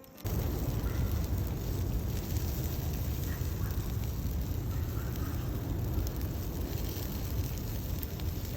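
Campfire burning outdoors, heard as a steady noisy rumble strong in the low end that starts abruptly just after the beginning, with a few faint short chirps above it.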